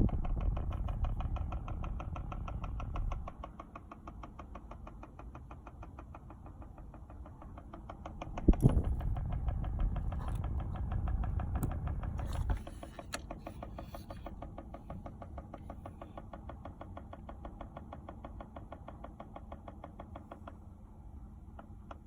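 Rapid, even ticking from behind the dashboard of a Volkswagen Golf Mk5, its cause unknown to the owner. A louder low rumble underlies it twice: at the start for about three seconds, and again for about four seconds from a sharp knock near the middle.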